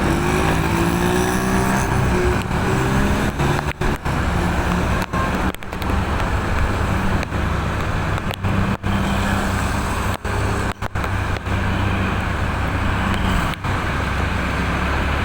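A vehicle engine running with a steady low hum among road traffic noise, with a brief rising and falling pitch glide in the first few seconds and several very short gaps in the sound.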